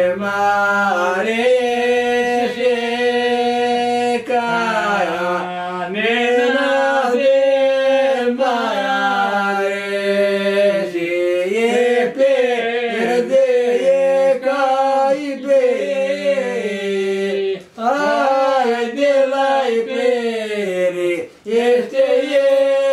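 Two men's voices singing a traditional Greek folk song unaccompanied, in long held notes with ornamented slides between pitches, one voice holding a lower steady note under the moving melody. The singing breaks off briefly twice near the end.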